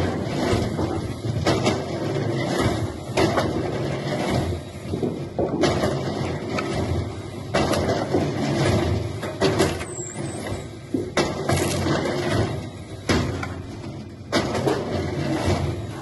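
Heavy machinery running, with loud clanks and knocks every second or two.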